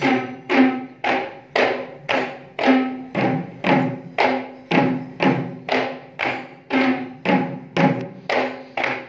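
Kandyan geta bera drums beaten by hand in a steady beat of about two strokes a second, each stroke ringing with a low pitched tone.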